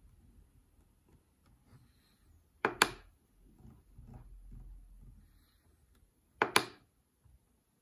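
Two presses on the control panel of an SMC5-5-N-N CNC motion controller, about 2.8 s and 6.5 s in, each a quick pair of sharp clicks.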